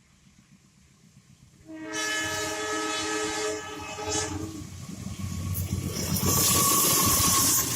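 A train horn sounds for about three seconds, then the train's rumble and rail noise build up as it comes through, with a loud hiss near the end.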